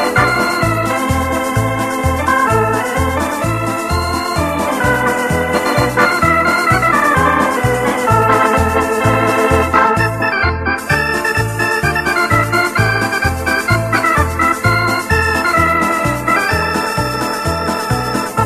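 Instrumental music on an electronic organ: a held, sustained melody over a steady bass beat of about two pulses a second and ticking rhythm-box percussion, which drops out briefly about ten seconds in.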